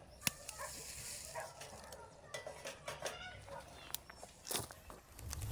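Chickens clucking in short, scattered calls, with a few sharp clicks or knocks, one about a quarter second in and a louder one about four and a half seconds in.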